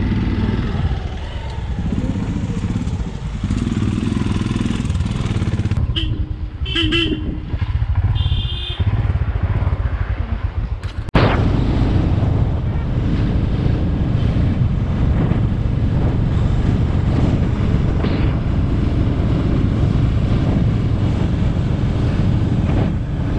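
Motorcycles running as they ride along, with wind noise on the microphone. A few short horn beeps sound about six to nine seconds in.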